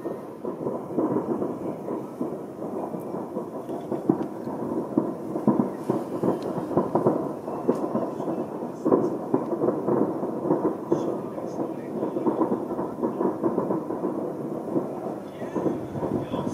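Many distant fireworks going off together, heard as a continuous crackling rumble of bangs running into one another, with sharper reports standing out now and then.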